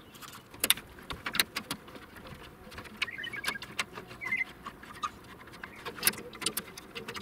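Irregular sharp clicks and knocks of hands working a plastic rain diverter into a galvanized metal downpipe, pushing and settling the parts in place.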